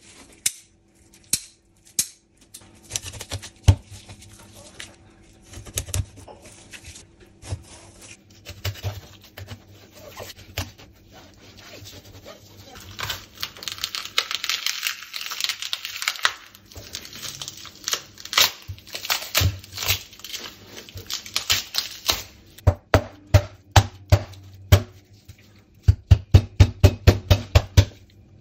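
A chef's knife cutting a mulloway on a cutting board: scattered sharp clicks and knocks of the blade and fish against the board, with a stretch of tearing and rustling midway as gloved hands pull the fish's collar apart. Near the end comes a quick run of sharp knocks, several a second, as the knife cuts through the collar.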